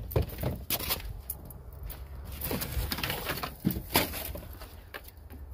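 Irregular footsteps and scuffs on sandy dirt, with wind rumbling on the microphone.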